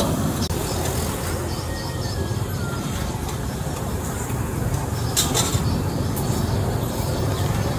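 Steady low rumbling background noise, like traffic or a busy street, with two brief clicks about five seconds in.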